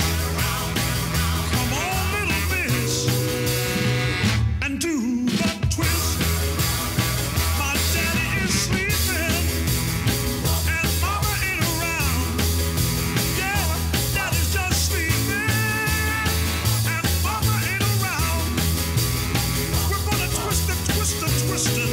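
Upbeat rock music with a steady drum beat and a repeating bass line, with a short break in the beat about five seconds in.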